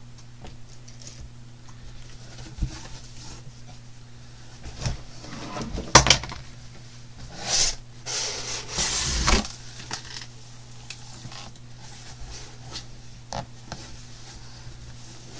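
Cardboard flaps of a shipping box being opened by hand: scattered knocks and scraping rubs of cardboard on cardboard, with a sharp knock about six seconds in and longer scrapes a couple of seconds later.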